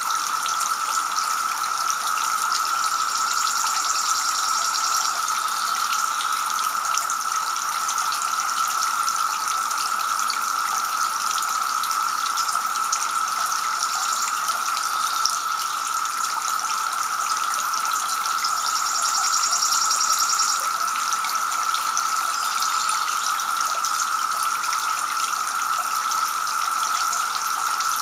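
Two-tier garden fountain running, water spilling from the upper bowl and splashing steadily into the basin below. A high, fast trill comes in twice over it, about three seconds in and again about two-thirds of the way through.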